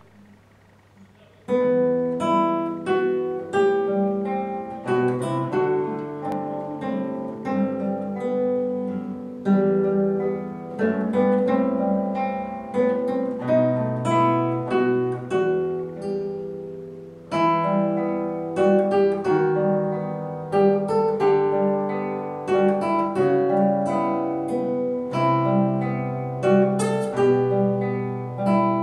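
Two nylon-string classical guitars playing a duet, plucked melody notes over a bass line, starting about a second and a half in.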